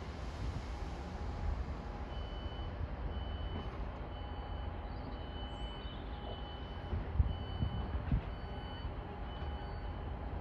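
Electronic warning beeper sounding a steady series of high beeps, about one a second, over a low rumble.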